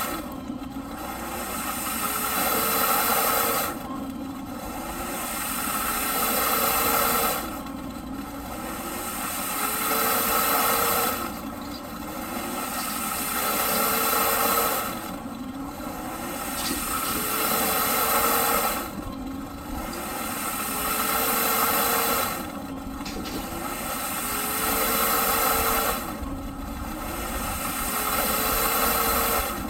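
Eureka PowerSpeed vacuum cleaner running loudly with a rushing airflow noise. In a repeating cycle of about every four seconds, the sound swells and the motor tone rises, then drops suddenly.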